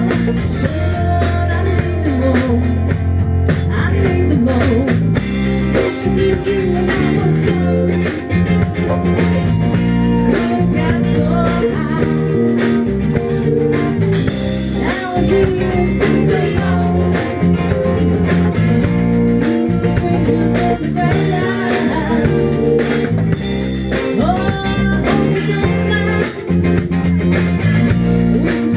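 Live band music: a drum kit, electric bass and electric guitar playing together, with a voice singing along.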